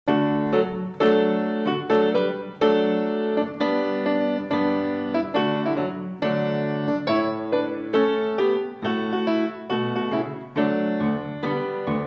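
Piano-style keyboard music: chords struck one after another, each fading before the next.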